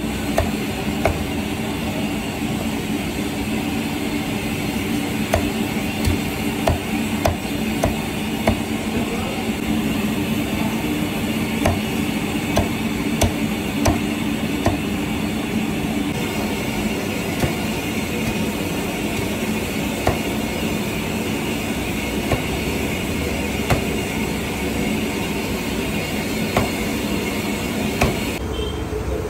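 A steel cleaver chopping cooked chicken pieces on a wooden chopping block: sharp, irregular chops about once a second, thinning out in the second half, over a steady low hum.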